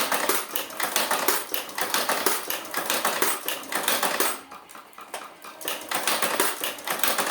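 Fast, dense mechanical clicking and rattling that drops in level about four seconds in and comes back near the end.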